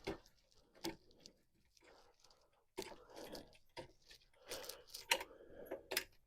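Car jack being cranked against a motorcycle tire's sidewall to break the bead: irregular clicks, creaks and crunchy rubbing of metal and rubber, busier from about halfway through.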